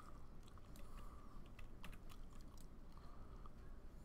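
Faint, irregular clicks of a computer keyboard and mouse, about ten scattered keystrokes and clicks over low room hum.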